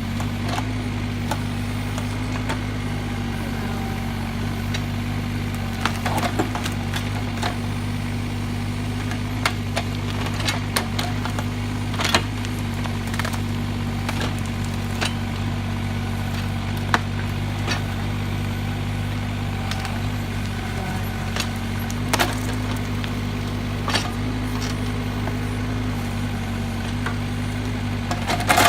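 Kubota K008-3 mini excavator's three-cylinder diesel running steadily under load, with sharp cracks and snaps of wood now and then as the bucket works an oak stump loose.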